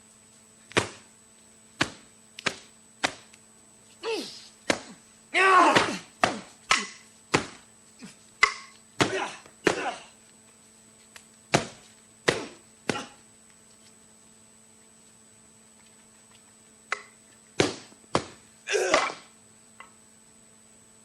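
Martial artists fighting: a string of sharp blows and slaps mixed with grunts and shouts, many in quick succession, then a pause of a few seconds before a few more blows and a last shout. A faint steady hum and whine from the old cassette tape runs underneath.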